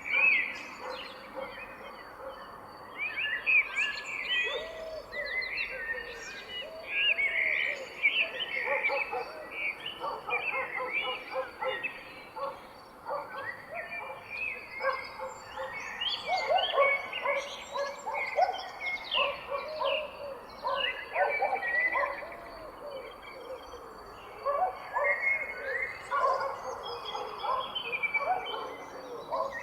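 A chorus of many songbirds singing and calling at once: overlapping chirps, trills and whistles.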